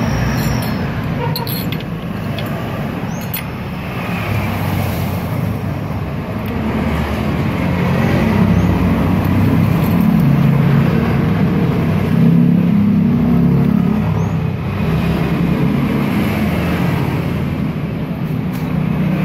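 Steady rumble of road traffic, swelling as vehicles pass, with a few sharp clicks near the start.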